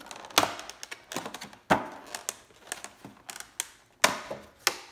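Clear plastic clamshell fruit tray being pried open by hand: crackling of thin plastic, with four sharp snaps as the lid's catches let go and smaller clicks between.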